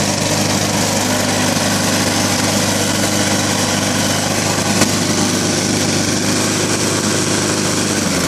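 Walk-behind lawn mower's small single-cylinder engine running steadily on gasoline vapor drawn from a homemade bubbler jar. Near the end its pitch sags: the vapor valve has been shut and the engine is starting to starve of fuel.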